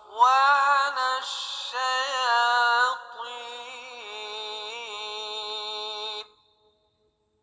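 A solo voice chanting a slow melodic line with long, wavering held notes, which cuts off suddenly about six seconds in.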